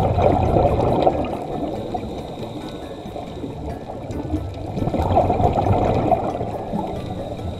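Scuba diver's exhaled bubbles gurgling out of the regulator, heard underwater: a bubbling surge at the start and another about five seconds later, with a low rush of water in between.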